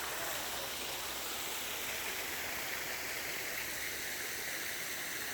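Running water splashing steadily from a garden pond's water feature, as an even rushing hiss that turns a little brighter about two seconds in.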